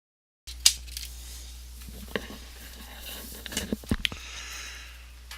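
Light clicks and metallic taps from a computer keyboard's steel backing plate and plastic parts being handled during disassembly, a few sharp ticks scattered over a steady low hum.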